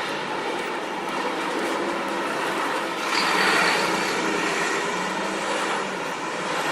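New York City street ambience: a steady wash of traffic noise with engines running. The noise swells about three seconds in.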